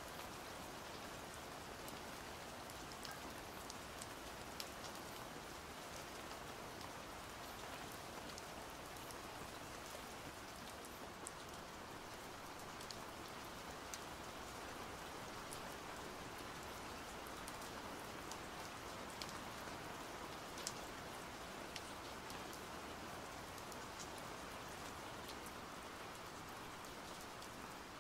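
Steady rain falling, a continuous faint hiss with scattered single drops ticking sharply.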